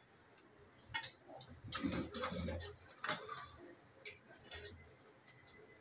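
A metal spoon scraping and knocking against a large aluminium pot as cooked rice is turned over and mixed, in a string of separate clicks and scrapes.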